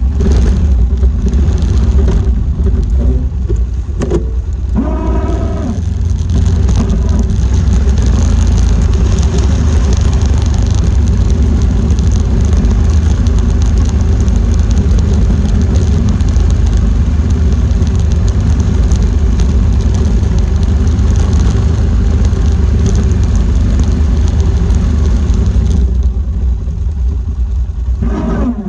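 Four-wheeler (ATV) engine running steadily under way, with a heavy low rumble. A short pitched whine rises and falls about five seconds in.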